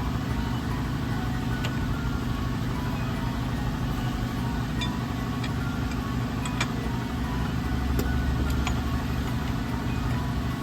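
A steady low mechanical drone, engine-like and pulsing evenly, with scattered light clicks over it.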